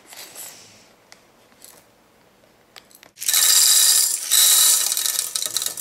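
Dry popcorn kernels poured into a small plastic container, making a loud, dense clattering rattle. It starts about three seconds in and lasts about two and a half seconds, with a brief dip midway.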